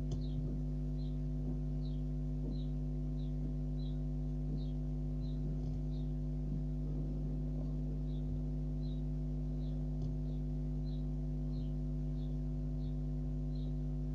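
A steady hum made of several fixed tones, with faint short high chirps repeating about every two-thirds of a second that pause briefly midway.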